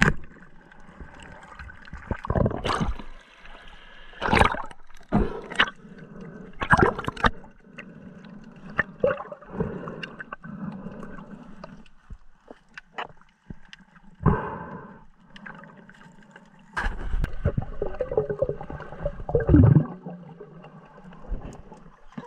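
Muffled underwater sounds heard through a camera housing: a run of sharp knocks and clatters from the speargun, its shaft and line while a speared mullet is brought in. Bubbling and a long low rumble come near the end.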